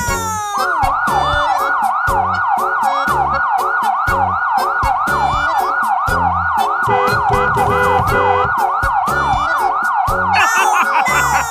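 Emergency-vehicle siren wailing in fast sweeps, about three to four a second, over background music with a steady beat; the siren stops near the end.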